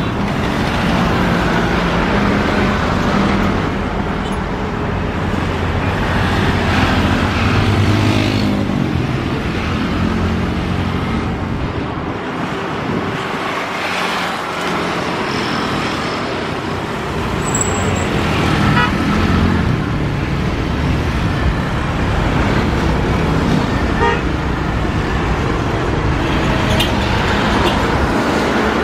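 The GE90-115B turbofan engines of a Boeing 777-300ER running loudly and steadily as the airliner lines up and starts its takeoff roll, mixed with road traffic noise.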